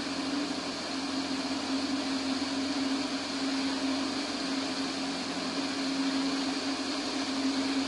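Light high-wing aircraft's engine and propeller droning steadily in flight: a constant hum under an even hiss.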